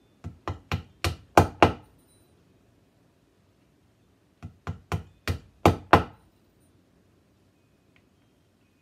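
Soft-headed mallet tapping brass nails into a vintage pachinko machine's wooden playfield: two runs of about six quick taps, each run getting harder toward the last blow, with a pause of a couple of seconds between them.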